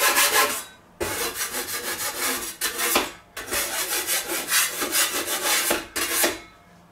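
Rough scraping on a wooden board in runs of quick strokes, with short pauses about one and three seconds in, stopping shortly before the end: the board being scraped clean.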